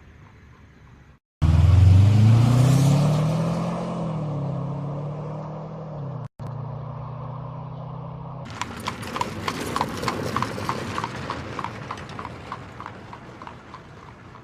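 A loud, low, pitched sound with a wavering pitch lasts several seconds and is held on one note near its end. From about eight seconds in, it gives way to rapid clip-clop hoofbeats of a horse that fade out.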